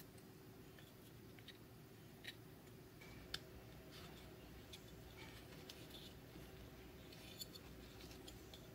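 Near silence with a few faint, short clicks and scratches from needle-nose pliers and a small plastic electronics housing being handled, the sharpest click about three and a half seconds in.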